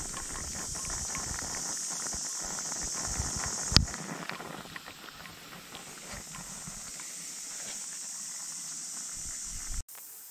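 Small wood-stick fire in a picnic stove crackling and hissing under a steel coffee percolator, with one loud sharp snap about four seconds in. The sound cuts off abruptly shortly before the end.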